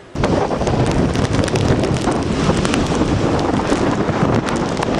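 Strong hurricane wind battering the microphone with heavy rumbling and crackling, over storm surf breaking on the shore. It begins abruptly.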